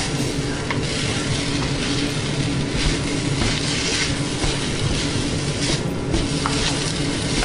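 Fried rice being stir-fried in a stainless steel wok: a steady sizzle with the spatula scraping and tossing the rice now and then, over a steady low hum.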